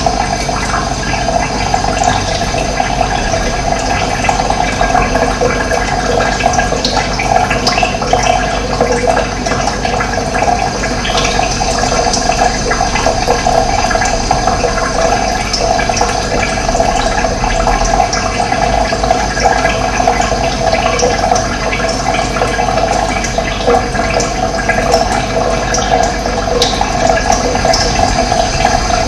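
Steady rushing of running water, an even, unbroken flow.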